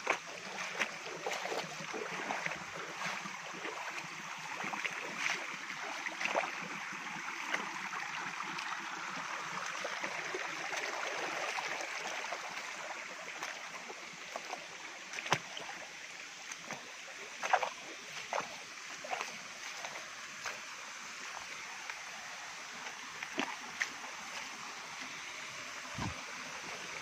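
Steady rush of running water from a shallow rocky stream and small waterfall, swelling in the middle, with scattered sharp clicks and a few louder knocks of footsteps on stones.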